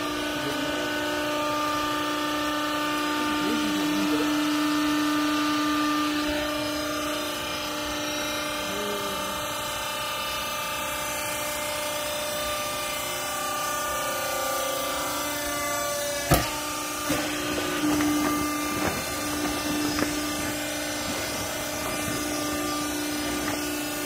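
Vertical hydraulic clothes baler's electric motor and hydraulic pump running with a steady hum, with a sharp knock about two-thirds of the way through.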